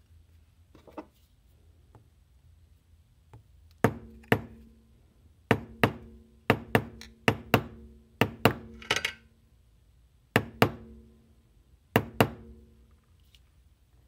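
Small hammer tapping a punch held against a Zippo lighter case: about fourteen sharp metallic taps, mostly in quick pairs, each leaving a short ring. The tapping works out the case's bulging bottom.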